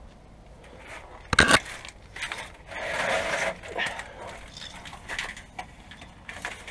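Handling noises of work under a truck: a sharp knock about a second and a half in, then a stretch of scraping and rustling, and a few small clicks.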